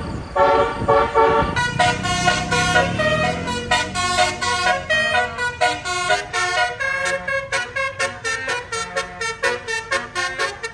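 A bus's 'telolet basuri' multi-note musical horn playing a fast melody of short, changing notes, over the low rumble of the bus engine.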